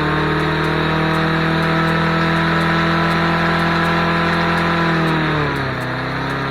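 Briggs & Stratton lawnmower engine running steadily with its freshly cleaned carburetor, its speed dropping a little about five seconds in.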